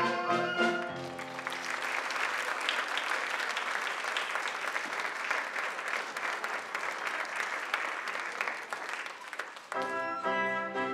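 Theatre audience applauding steadily after a song ends. The pit orchestra's last notes die away in the first second, and the orchestra starts playing again near the end.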